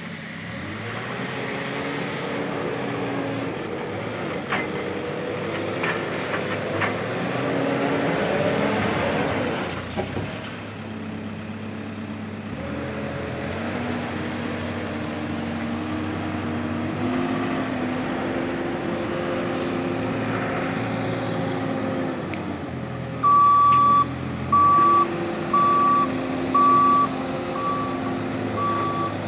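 JCB 525-60 Hi Viz telehandler's Kohler diesel engine running as the machine drives, its pitch rising and falling with the throttle. Near the end the reversing alarm starts beeping, about once a second.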